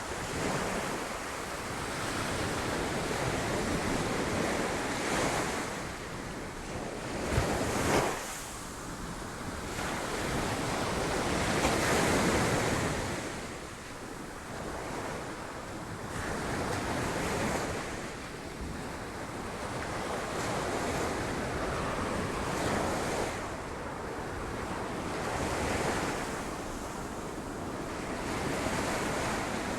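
Sea waves breaking against rocks, the surf swelling and falling back every few seconds, with sharp crashes about seven and eight seconds in and a large surge a few seconds later. Wind buffets the microphone.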